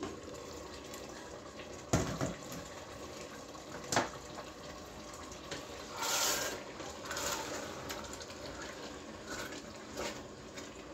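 A wooden spoon stirs a simmering tomato and pepper sauce in a stainless steel pot, with wet, liquid stirring sounds. The glass lid comes off at the start, and there are sharp knocks about two and four seconds in and again near the end.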